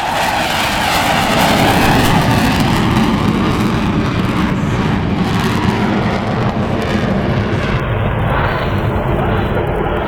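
Loud jet noise from an EA-6B Prowler's two Pratt & Whitney J52 turbojets as the aircraft makes its demonstration run. A pitch in the noise falls over the first few seconds, and the hiss on top drops away near the end.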